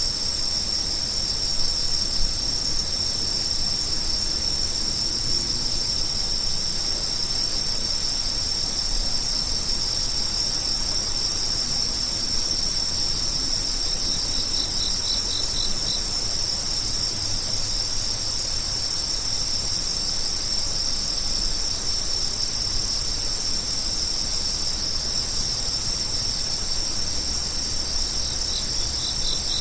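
Insects calling in a steady, unbroken high-pitched drone. A second, lower pulsed trill joins briefly about halfway through and again near the end.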